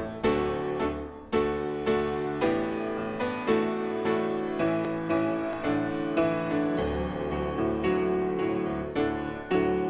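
Grand piano played solo: chords struck one after another at an unhurried pace, each ringing on and fading before the next.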